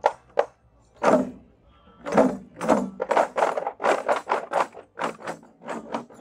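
Hand-held frame drums beaten by a marching group. A couple of single strikes come first, then from about a second in many drums join in a dense, steady beat.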